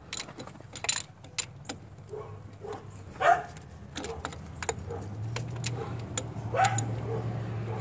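Ratchet wrench and socket working the thermostat housing bolts, giving scattered metallic clicks and clinks. Two brief squeaks stand out, about three and six and a half seconds in, and a low hum builds in the background from about five seconds in.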